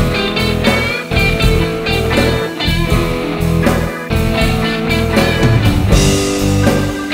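Background music: guitar-driven blues-rock with a steady bass line.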